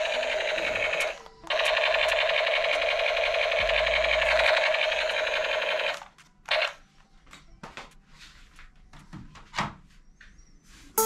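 Battery-powered toy submachine gun's electronic firing sound effect, a steady buzzing rattle that breaks off briefly about a second in and stops about six seconds in. Then plastic toy guns clatter and click as the toy is laid back in the box.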